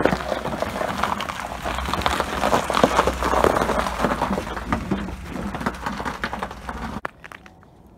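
Footsteps crunching on packed snow and slush, a dense run of irregular crunches over a steady low rumble. It cuts off abruptly near the end.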